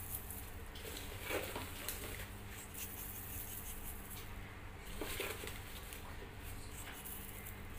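A hand stirring dry puffed rice in a pot, giving a few soft rustles, over a faint steady low hum.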